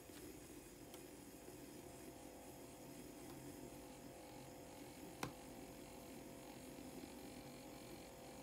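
Faint steady hum of a HadinEEon electric milk frother running, its whisk spinning as it heats and froths milk. One faint click about five seconds in.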